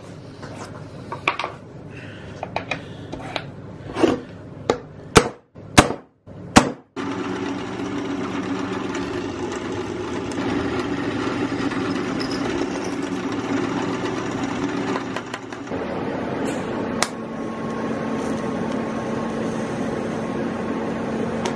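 Metal parts knocked and clinked several times, then a power tool's motor runs steadily, dipping briefly about two thirds of the way through before running on.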